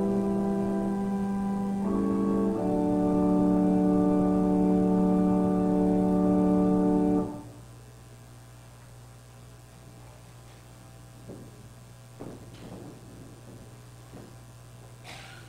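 Organ holding sustained chords, changing chord about two and a half seconds in, with the final chord released about seven seconds in. A quiet low hum of room tone follows, with a few faint knocks.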